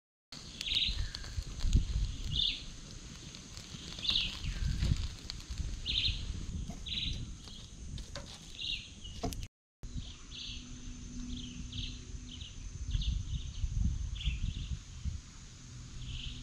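Birds chirping repeatedly, short calls every half second or so, over gusty wind rumble on the microphone and a steady high-pitched drone; the sound cuts out briefly near the middle.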